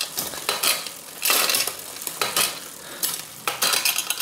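Bicycle chain running over the chainrings and rear cogs as the crank is turned by hand, coming and going in repeated surges of metallic rattle, while the freshly adjusted front derailleur shifts the chain across the triple chainset's rings.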